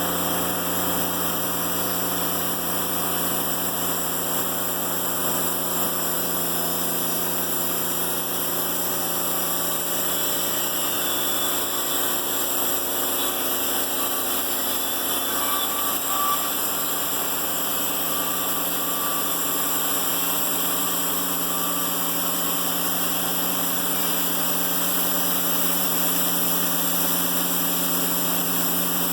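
Timberking 1400 band sawmill running at a steady, even pitch through a cut in a black locust log.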